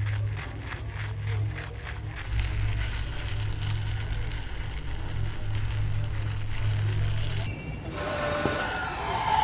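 Coffee beans churning in a roaster under a stirring arm, a dense rattling crackle over a low steady hum. The rattle cuts off sharply about seven and a half seconds in, and a different sound follows near the end.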